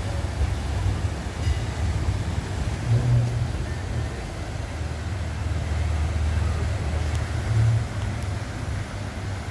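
Steady low rumble with a rushing hiss over it, from a passenger boat's engine passing close by on the fast, flood-swollen river. The rumble swells briefly twice.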